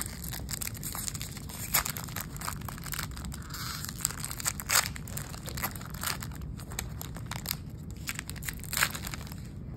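Foil wrapper of a Topps baseball card pack being torn open and crumpled by hand: an irregular run of sharp crackles and rips.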